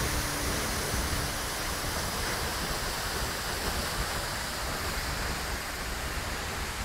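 Waterfall: the steady rush of a large cascade of water plunging into its pool, heard from close by.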